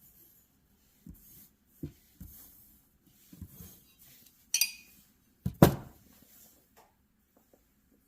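Steel wrenches being handled and set down: scattered light knocks and clicks, a ringing metal clink about halfway through, and a sharper clunk just after it.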